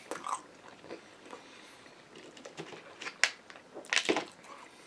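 Close-up mouth sounds of chewing a fried chicken sandwich: soft wet clicks and crunches, with a sharp click about three seconds in. Near the end comes a short cluster of rustling crackles as the sandwich is pulled apart in its paper wrapper.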